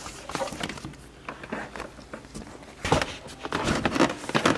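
Car carpet being laid back down and pressed into place by hand: scattered rustling, scuffing and soft taps, busier near the end.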